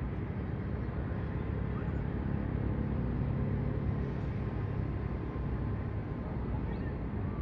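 A steady low engine drone with several held low tones, under a constant wash of outdoor noise.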